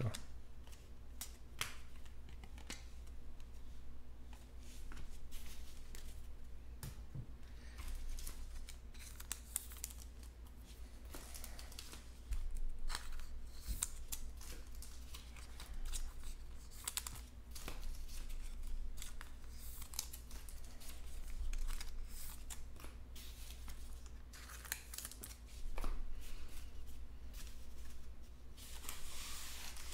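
Baseball trading cards being handled and laid down on a table: scattered soft slides, rustles and light taps, growing busier near the end as a foil card pack is picked up.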